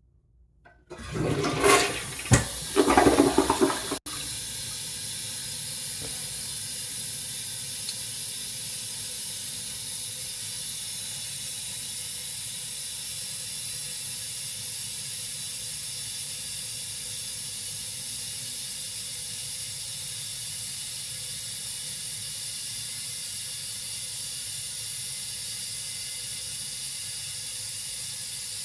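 Toilet flushing: a loud rush of water for about three seconds that stops abruptly, then a steady hiss as the tank refills.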